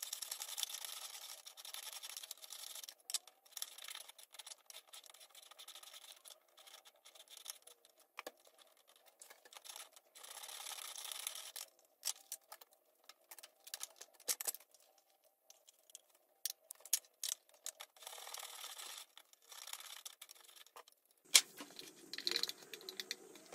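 Zucchini being grated into spaghetti-like strands on a hand-held vegetable grater: stretches of faint rasping scraping, a second or two each, broken by sharp clicks and knocks of the gadget.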